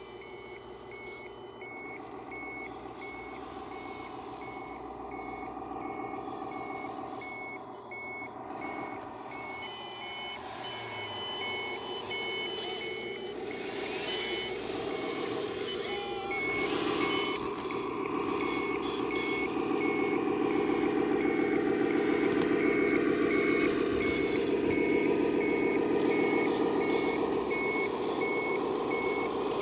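Backup beeper of RC heavy equipment beeping steadily and evenly, over the steady running of the machine, which grows louder about halfway through.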